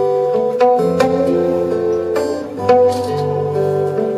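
Instrumental folk piece played live on two acoustic guitars and a small electronic keyboard. Plucked guitar notes sound over sustained keyboard tones.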